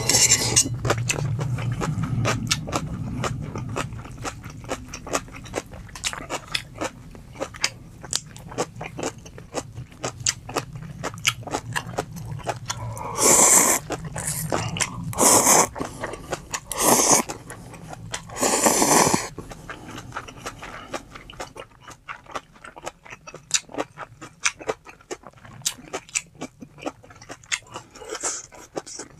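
Close-up eating sounds of ramen with chonggak (young radish) kimchi: steady crunching and chewing clicks, with four loud noodle slurps in the middle.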